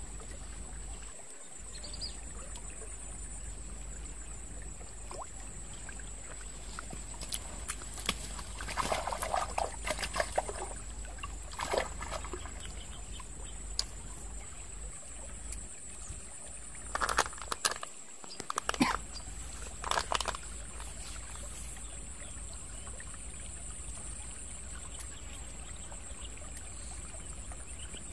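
Shallow stream trickling steadily, with a thin, high, steady buzz above it. Twice in the middle come short clusters of clicks and rustles.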